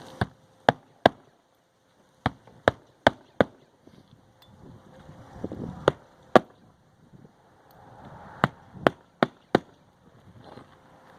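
Roofing hatchet hand-nailing roofing nails through asphalt shingles: groups of two to four sharp hammer strikes, about 0.4 s apart, each group driving one nail home.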